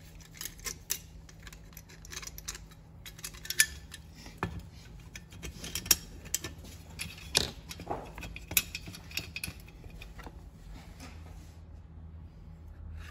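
Small metal engine parts and hand tools being handled: irregular light clinks, clicks and taps, thinning out near the end, during reassembly of a Husqvarna 252RX brushcutter's two-stroke engine.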